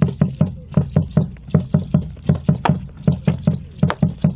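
A drum beaten in a fast steady rhythm, about five low thumps a second with alternating strong and weaker strokes.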